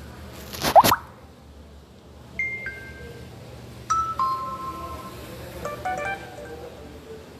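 Samsung Galaxy J2 Core notification tones played one after another through the phone's speaker: a short rising sweep, then two falling two-note chimes, then a quick run of chime notes.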